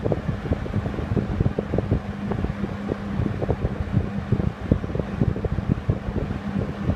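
Late-1960s Wards Signature 20-inch box fan with a Hunter R&M motor running steadily on medium speed: a steady whoosh of air with a low motor hum, and its airflow buffeting the microphone in irregular gusts.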